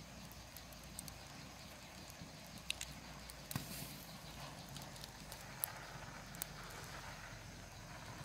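Snail shells clicking against each other as they are picked up and handled: a handful of sharp, light clicks over a faint steady hiss.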